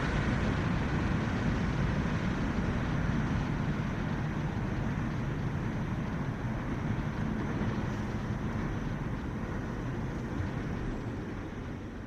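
A passing train rumbling along the rails, its noise fading gradually as it moves away.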